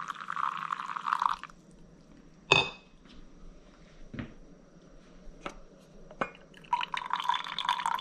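Hot water poured from a glass carafe onto coffee grounds in a paper filter for about a second and a half. Then comes one sharp, ringing clink and a few light knocks. Near the end, brewed coffee starts to stream from the pour-over filter basket into a glass mug.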